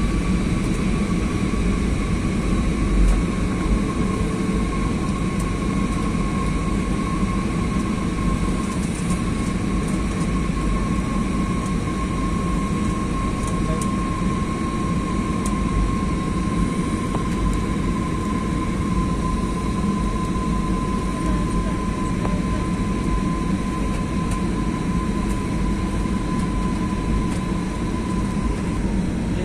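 Jet airliner cabin noise during the descent to landing: a steady roar of engines and airflow with a high whine that drifts slightly lower over the stretch.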